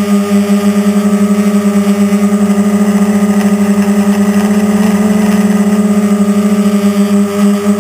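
A radio-controlled quadcopter's electric motors and propellers running in flight, a steady buzzing hum with a rapid, even pulsing, heard up close from the camera mounted on the frame.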